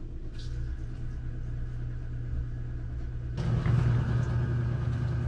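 A steady, low mechanical hum from a running motor, stepping up louder about three and a half seconds in.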